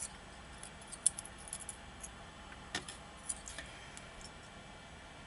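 Faint, scattered small metallic clicks and ticks of tweezers handling tiny lock pins.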